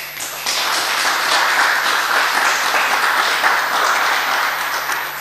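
Audience applauding in a room, a steady patter of many hands that dies away near the end.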